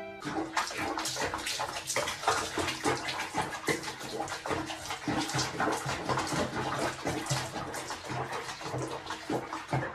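Water splashing and sloshing irregularly in a sink basin as a cat sits bathing in it.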